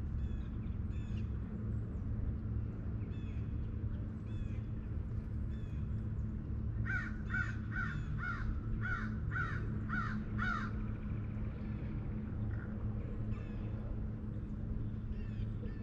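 A crow cawing: a run of about eight harsh caws, roughly two a second, about halfway through, with fainter calls before and after. A steady low hum runs underneath.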